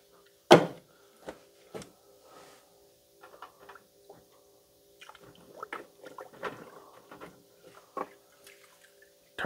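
Tongs knocking and clicking against a stainless steel pot and dark liquid sloshing as a plastic part is fished out of a degreasing soak. One sharp knock about half a second in, then scattered small clicks and splashes.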